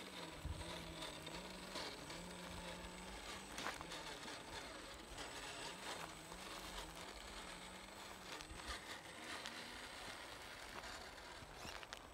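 Gen 8 RC rock crawler driving slowly over dirt: a faint low electric-motor and gear whine that steps up and down in pitch as the throttle is eased on and off, with light crunching of the tyres and a few sharp clicks from stones.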